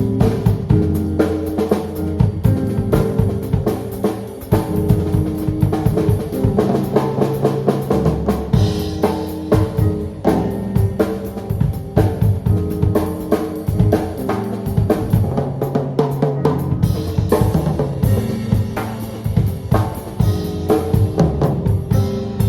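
A live band playing an instrumental passage: a drum kit with kick and snare keeping a steady beat under a pitched bass line and chords.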